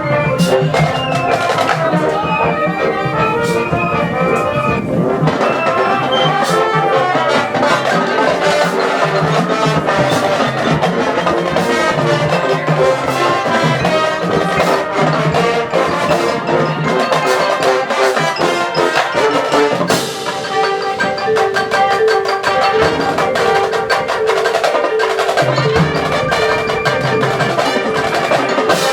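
High school marching band playing, with mallet percussion such as marimba, xylophone and bells and other percussion strikes prominent in the ensemble.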